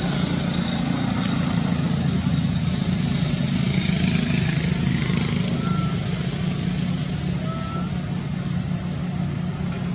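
A motor engine running steadily with a low hum, with a few faint short chirps over it about six and eight seconds in.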